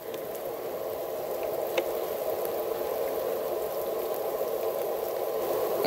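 Steady rain falling on wet snow and trees in a thaw: an even hiss, with one faint click about two seconds in.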